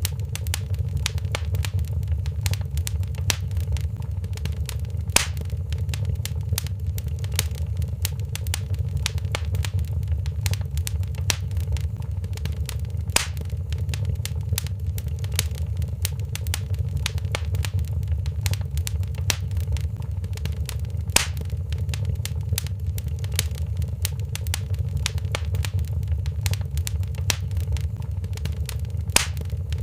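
Wood fire crackling in a fireplace: a dense run of small pops and clicks over a low, steady rumble, with four louder snaps about eight seconds apart.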